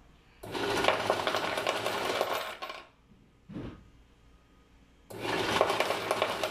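Bill changer's coin hopper dispensing, a rapid stream of coins clattering into the pay-out tray in two runs of about two and a half seconds each, stopping in between. It pays out a 100-peso credit in two halves, programmed that way so the count stays accurate.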